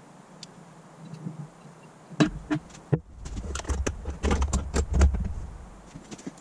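Small metal parts of a fuel pump's contact plate clicking and rattling as it is handled. There are a few faint ticks, then a busy run of sharp clicks and knocks over a low rumble in the second half.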